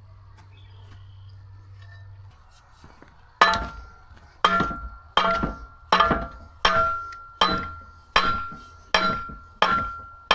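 Hammer striking tack-welded steel pieces about nine times at a steady pace, a little over one blow a second, starting about three seconds in; each blow rings metallically. The blows are meant to knock the tack-welded pieces loose.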